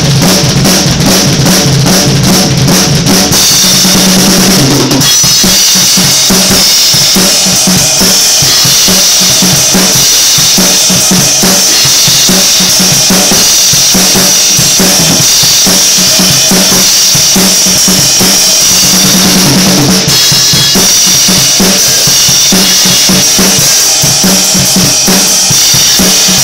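An acoustic drum kit played hard without a break: snare, bass drum and tom hits under ringing cymbals, very loud. The beat changes a few seconds in and again later.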